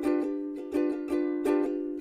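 Background music: a plucked-string tune, ukulele-like, with quick repeated strummed notes that ring and fade.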